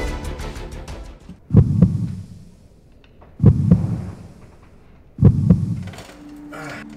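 Heartbeat sound effect: three slow, evenly spaced low double thumps (lub-dub), each fading out.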